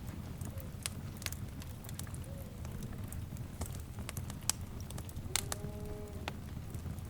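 Wood fire crackling, with irregular sharp pops and snaps over a steady low rumble of burning. A faint pitched call with several tones rises about five seconds in.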